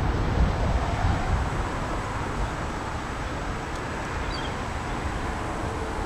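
Wind blowing through the leafy trees with a rustling rush, and wind buffeting the microphone at the low end. The gust eases over the first two seconds, leaving a steadier rush.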